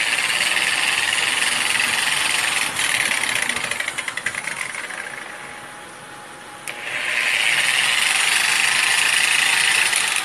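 Electric rotary polisher with a wool buffing bonnet, its motor running at speed with a high whine. About three seconds in it is switched off and winds down, then about seven seconds in it is switched back on with a click and spins up to full speed again.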